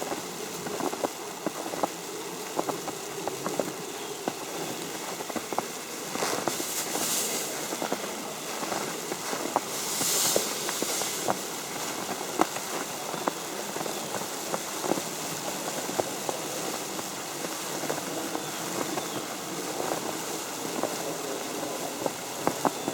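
Falling snow pattering on an umbrella overhead: a dense, irregular scatter of small ticks over a soft steady hiss. Two brief hissing swishes stand out about 7 and 10 seconds in.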